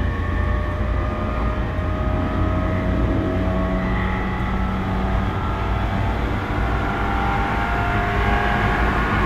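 Running sound inside a JR E231-0 series electric commuter train motor car: traction motors whining in several tones over a low rumble of wheels on rail, the tones shifting slowly in pitch and getting louder near the end.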